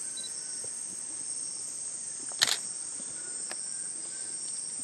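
Rainforest insect chorus: a steady high-pitched drone of insects, with a single sharp click about two and a half seconds in.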